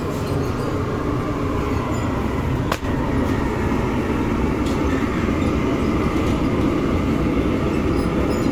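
Automatic rotary gas-fired flatbread oven running: a steady mechanical rumble. A single short click comes about three seconds in.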